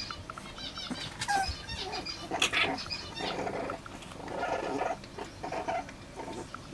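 French bulldog puppies play-fighting, letting out a short falling whine about a second in and then several bouts of growling and grunting.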